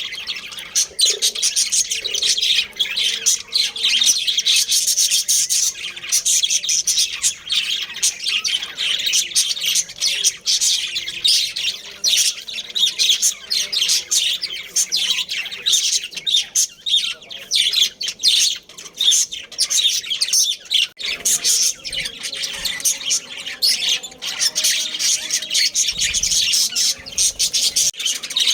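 Budgerigars chirping and chattering without a break, many short calls overlapping.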